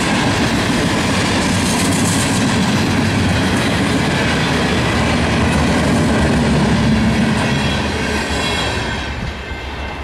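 A Canadian National freight train's loaded lumber and bulkhead flatcars rolling past over a road crossing, wheels running steadily on the rails. The sound fades near the end as the last cars clear.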